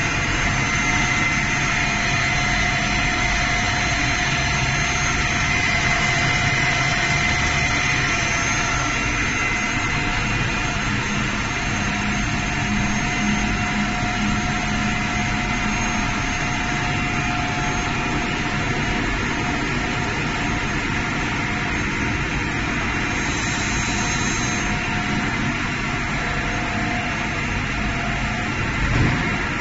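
Steady machine drone of a running high-speed PE pipe extrusion line, several steady whining tones over a broad hum. A brief high hiss comes about two-thirds of the way through, and a short thump near the end.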